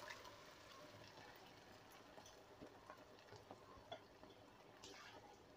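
Near silence, with a few faint scattered ticks.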